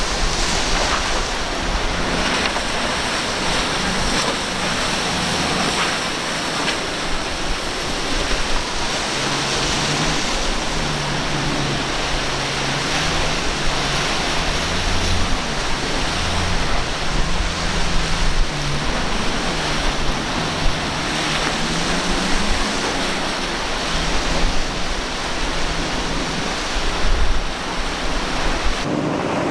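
Surf and wind rushing steadily, with the drone of boat outboard motors rising and falling in pitch through the middle as the boats run through the waves.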